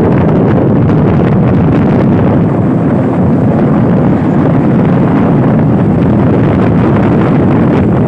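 Strong wind buffeting a phone's microphone: a loud, steady low rumble of wind noise.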